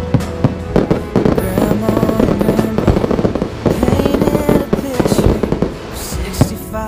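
Fireworks going off in rapid, overlapping bangs and crackles, with music playing underneath.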